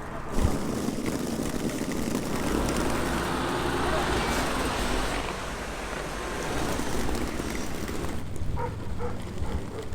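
Street noise of road traffic going by, with people's voices in the background and a short knock about half a second in.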